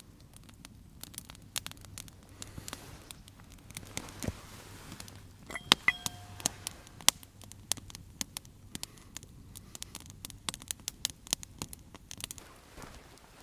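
Wood campfire crackling, with irregular sharp pops and snaps scattered through; the loudest snaps come about six seconds in.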